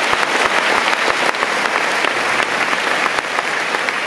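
A large concert audience applauding: dense, steady clapping.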